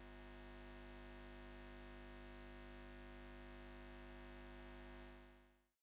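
Faint steady electrical hum: a deep low drone with a stack of steady higher tones above it, fading in at the start and fading out near the end.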